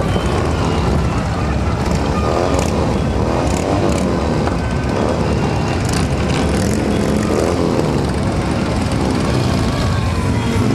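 A procession of large cruiser and touring motorcycles riding past at low speed, their engines running in a steady, overlapping rumble. The pitch rises and falls as individual bikes pass close by.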